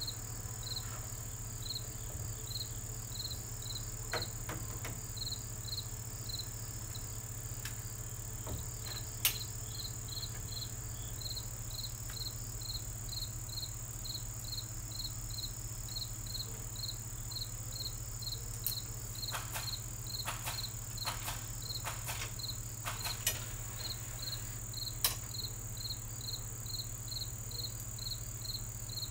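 A cricket chirping steadily, short evenly spaced chirps a little under two a second, over a steady low hum. A few sharp clicks and taps break in, the loudest about nine seconds in and a cluster in the second half.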